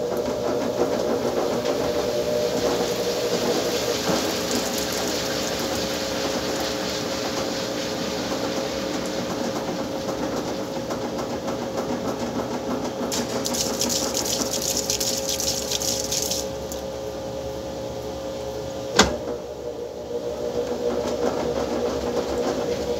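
Top-load washing machine spinning its basket of clothes, the motor and drive giving a steady hum with a rushing noise over it. A brighter hiss joins in for about three seconds partway through, and a single sharp click sounds near the end.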